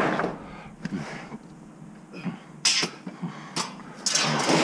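Short scraping and rustling noises of dumpster debris being shifted as a large sheet of painted steel is pulled up by a gloved hand, the loudest and longest near the end.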